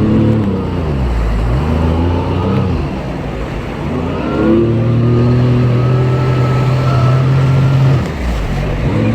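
Jet ski engine revving up and easing off: its pitch drops in the first second, picks up again, then climbs about four and a half seconds in and holds steady at speed before easing off near the end, with a rush of water and wind underneath.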